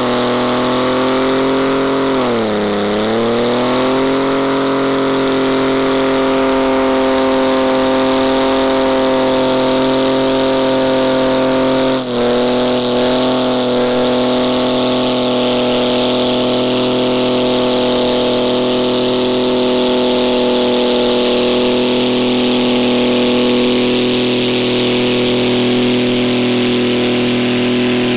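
Car engine revved up and held at high, steady revs for a long stretch, dipping briefly about two seconds in and stumbling once midway.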